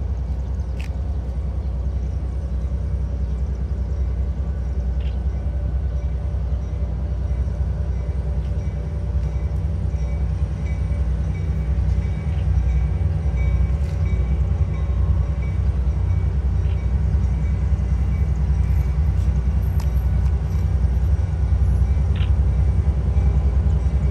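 Diesel locomotives of an approaching freight train led by an EMD GP39-2, a steady low rumble that grows somewhat louder about halfway through as the train nears.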